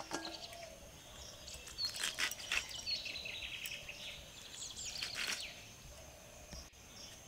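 Pumpkin leaves (kumro shak) being cut by hand against a bonti, an upright curved kitchen blade: a few crisp cuts and leaf rustles, about two seconds in and again past five seconds. Birds chirp and a faint steady insect drone runs behind.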